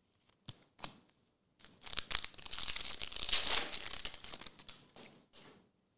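Foil wrapper of a Marvel Annual trading-card pack torn open by hand: a few small crinkles, then a long crinkling rip lasting about three seconds, with one last short crinkle near the end.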